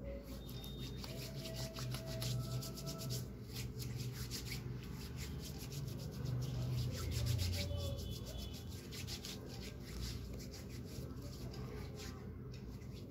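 Hands rubbing together, spreading hand sanitizer over the palms and fingers, with fast strokes that keep going without a break.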